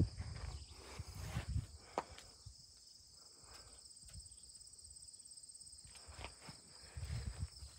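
Field crickets chirring in a steady high chorus. Soft low thuds of footsteps on grass come near the start and again near the end.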